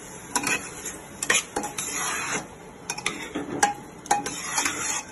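A spoon stirring rice and beetroot in a pressure cooker, scraping the bottom of the pot with irregular clinks and knocks against its sides.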